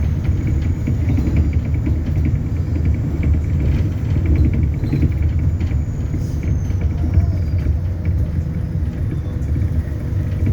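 ADL Enviro400 Hybrid double-decker bus heard from inside while under way: a steady low rumble of the drivetrain and road, with a faint high whistle that glides down a little about six to seven seconds in.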